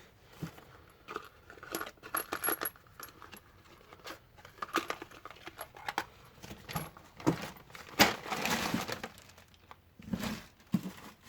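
Small metal bolts clinking and clattering as they are handled and rummaged through, with a denser burst of rummaging about eight seconds in.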